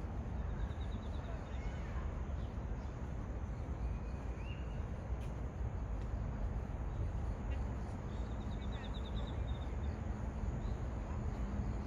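Outdoor ambience: a steady low rumble with faint small chirps over it, including two short pulsing trills about half a second in and around eight seconds, a brief rising chirp around four and a half seconds, and a single faint click.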